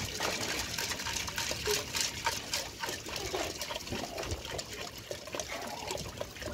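Water pouring in a steady stream from a plastic jerrycan into an aluminium pot of dry red beans, splashing over the beans as the pot fills.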